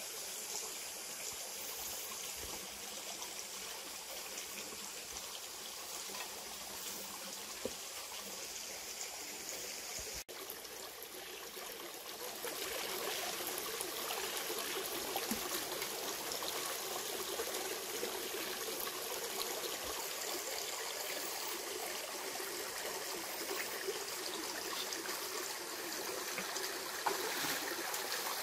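Shallow rocky stream trickling and flowing over stones, a little louder after about twelve seconds, with light splashes near the end as someone wades through the water.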